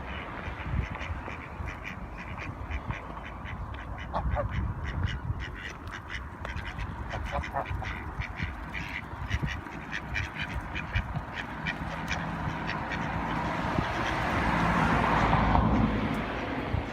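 Swan giving many short, repeated honking calls over a low rumble. A rushing noise builds and fades near the end.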